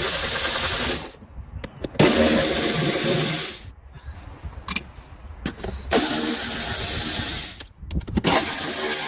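Power tool, most likely air-driven, running in four bursts of about a second and a half each with short pauses between, as used to loosen fasteners.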